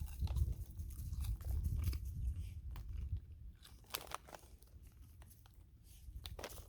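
A person biting into and chewing Lay's Wavy potato chips: crisp crunches over a low chewing rumble that grows quieter about halfway through, with a couple of sharp crunches later on.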